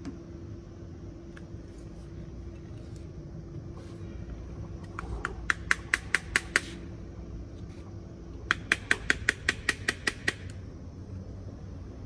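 Two quick runs of sharp clicks, about five or six a second, from a screwdriver working at the plastic clips of a motorcycle fuel pump assembly. The first run is short and comes about halfway through; the second, longer run comes a couple of seconds later. A low steady hum lies under both.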